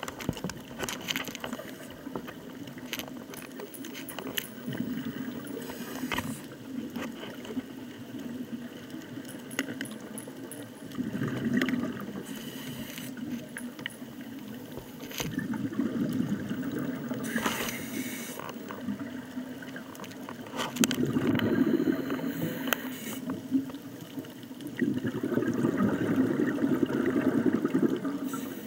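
Underwater recording of a scuba diver's exhaled bubbles, gurgling in bursts every few seconds, the last ones the loudest, with scattered short clicks between them.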